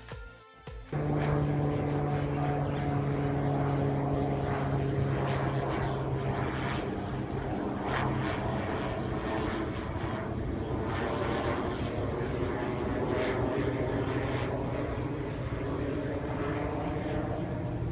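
Small plastic propeller of a Window Jammers toy plane spinning in the wind, giving a steady buzzing hum with a rush of air noise. It starts about a second in, as the music cuts out, and keeps going at an even pitch.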